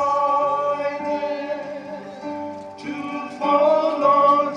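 Music with long held notes and singing.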